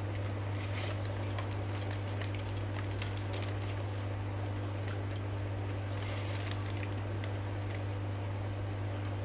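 Steady low electrical hum of aquarium equipment such as pumps, with scattered faint clicks and ticks.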